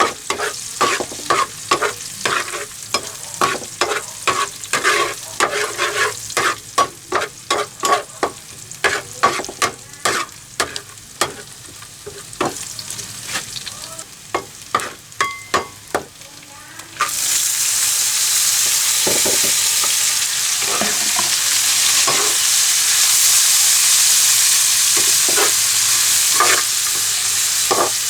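A utensil knocking and scraping in a pan, about two or three taps a second. About two-thirds of the way through, a sudden loud sizzle starts as food goes into hot oil, and it keeps frying steadily with a few taps of the spatula.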